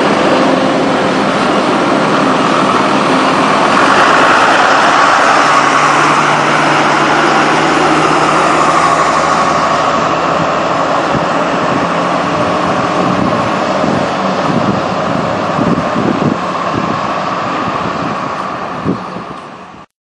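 School bus driving away, its engine and road noise running steadily and slowly growing fainter as it leaves, then cutting off suddenly at the end.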